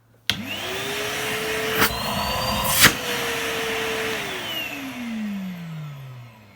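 Numatic Henry 160 vacuum cleaner switched on, its motor spinning up quickly to a steady run, with two sharp knocks in the middle. After about four seconds it is switched off and winds down with a falling whine. The motor has survived being run without a filter and runs sound: "nothing wrong with that at all."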